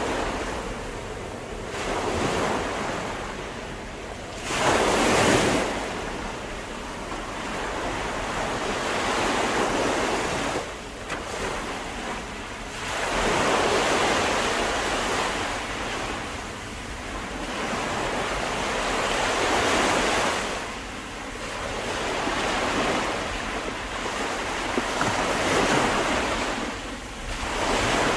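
Ocean surf: a steady rush of waves that swells and falls back every five to six seconds.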